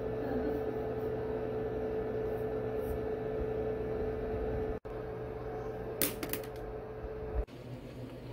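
Steady mechanical hum with a constant mid-pitched tone, broken off sharply twice. A quick run of sharp clicks comes about six seconds in, and the tone is gone for the last second, leaving a plain hiss.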